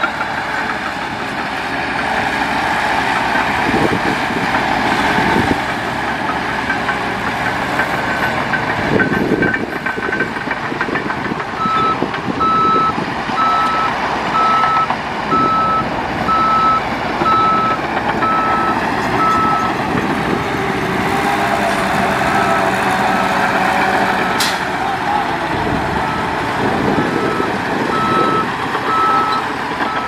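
Engine of heavy earthmoving equipment running, joined about a third of the way in by a reversing alarm beeping in evenly spaced beeps, a little over one a second, that briefly pauses and then resumes.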